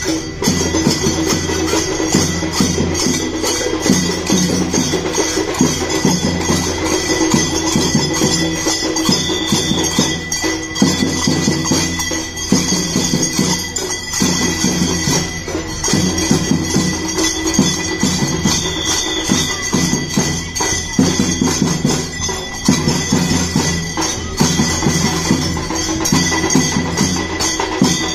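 A troupe of boys playing jhanj, small brass hand cymbals, together in a rhythmic routine: a loud, dense, steady clashing and jingling over a lower rhythmic accompaniment.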